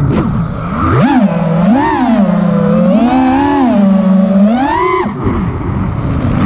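FPV freestyle quadcopter's brushless motors and propellers whining, the pitch rising and falling with each burst of throttle. About five seconds in the whine drops sharply as the throttle is cut, then climbs again.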